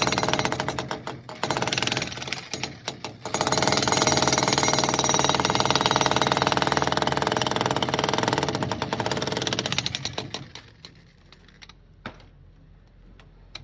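Concrete breaker (jackhammer) pounding continuously, with two brief let-ups in the first few seconds. The hammering stops about ten seconds in, followed by a single knock near the end.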